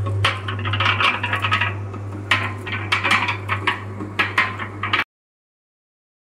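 Electric cement mixer running, its drum turning with a steady low motor hum and a busy rattling and clicking from inside the drum. The sound cuts off abruptly about five seconds in, leaving silence.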